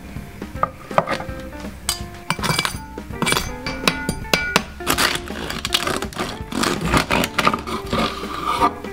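Serrated bread knife sawing through the crisp crackling skin of a roast porchetta: a run of crunches and crackles, coming thick from about two seconds in, with background music.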